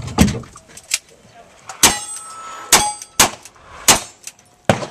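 Revolver shots at steel silhouette targets, each hit ringing off the steel plate: about five sharp shots under a second apart, starting about two seconds in, with a smaller knock near the start.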